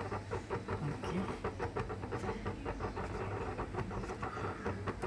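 Rasam simmering in a stainless steel pot after the rasam powder has gone in, its bubbles popping in a rapid, irregular patter over a low steady hum.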